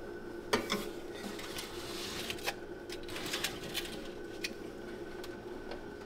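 A foil baking tray of stuffed lobster tails being set on a metal oven rack and the rack pushed in: scattered light clinks and rattles of the rack and tray, the sharpest about half a second in, over a steady hum.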